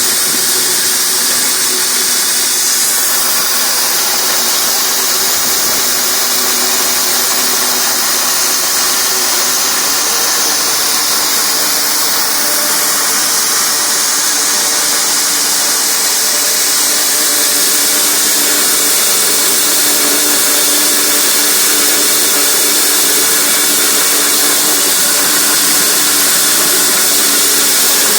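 Tractor-PTO-driven feed grinder running steadily while crushing barley, a loud continuous hiss of grain being crushed, with the tractor engine humming underneath.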